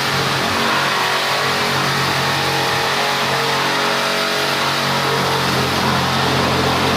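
Reciprocating saw with a tungsten carbide tipped blade cutting through soft brickwork: a steady motor whine over a continuous rasping grind.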